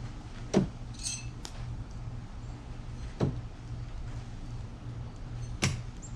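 Thrown knives hitting the target: three sharp metallic knocks about two and a half seconds apart, the first the loudest and followed by a brief high ring.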